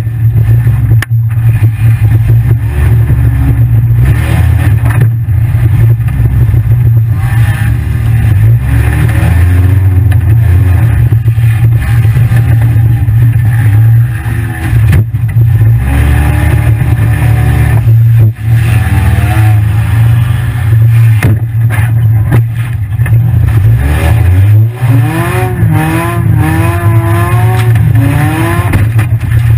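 Demolition derby car's engine running loud and distorted inside the stripped cabin, with a heavy steady rumble and revs that rise and fall, most clearly near the end.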